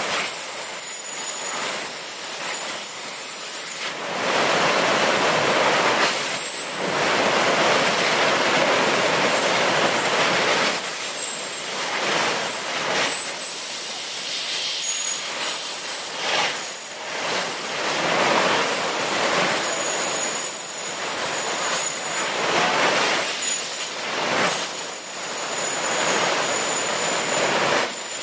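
Floodwater pouring over a dam spillway and churning at its foot: a steady rushing noise that swells louder about four seconds in.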